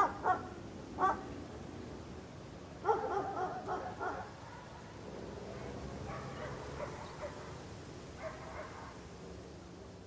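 A dog barking in bursts: two sharp barks at the start and one about a second in, a quick run of loud barks around three to four seconds, then fainter, scattered barks later, over a steady background hiss.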